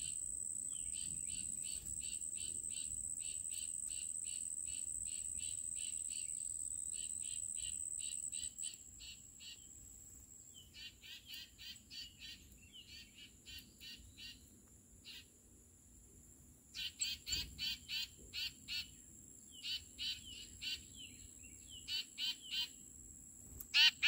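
Songbirds singing in series of short, high repeated whistled notes, the series growing louder and coming about three notes a second in the second half. Under them a steady high-pitched insect drone runs and cuts off about eight seconds in.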